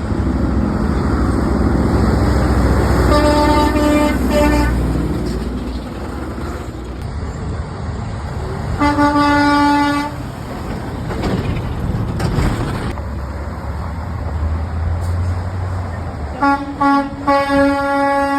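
Trucks passing on a road and sounding their horns over the rumble of engines and tyres: a few short toots about three seconds in, one long single-note blast around nine seconds, and a run of short blasts ending in a longer one near the end.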